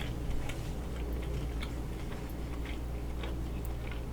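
A person chewing food close to the microphone, with small wet clicks of the mouth scattered through, over a steady low hum.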